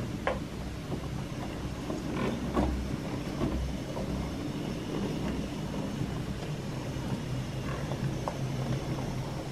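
OO gauge model steam locomotive hauling a train of milk tank wagons along the track: a steady electric-motor hum with scattered clicks of the wheels over the rail joints.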